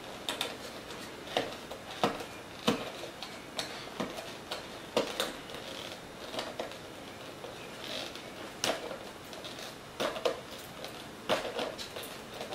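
A cardboard retail box being opened by hand: a string of light clicks, taps and rustles as fingers pick at the top flap and the packaging inside shifts.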